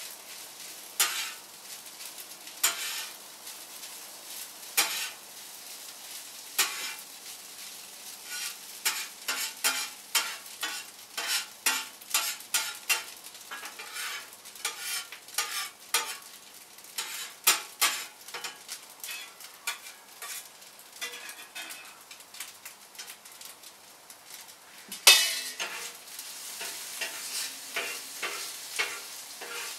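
A spatula scraping and stirring fried rice in a hot pan over a steady sizzle as the rice's moisture cooks off. There are repeated short scrapes throughout, then a sharp clatter about 25 seconds in, after which the sizzle is louder.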